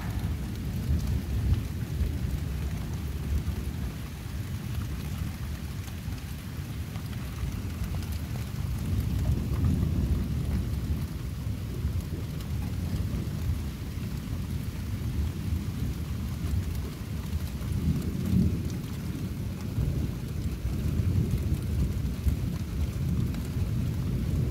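Thunder rumbling low and steadily, swelling about nine seconds in and again near eighteen seconds, over steady falling rain.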